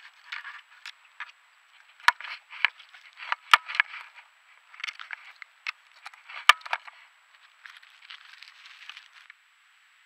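Dry leaf litter crunching and crackling close to the microphone, in uneven bursts with several sharp snaps, the loudest about two, three and a half and six and a half seconds in: something unseen moving through the leaves near the trail camera. It stops abruptly near the end.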